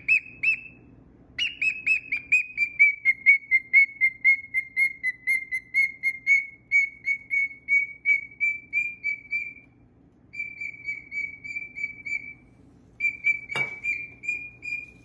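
Cockatiel giving a long series of short, repeated whistled chirps, about three a second, starting high, dipping, then holding a steady pitch, with a few brief pauses. A single sharp tap near the end.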